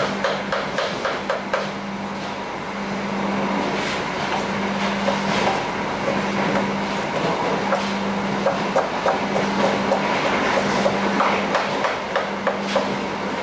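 A metal spatula clanking and scraping against a wok as fried rice is stir-fried, in quick runs of clacks, loudest near the start and again in the second half. It sits over the steady running noise of the train, with a constant low hum.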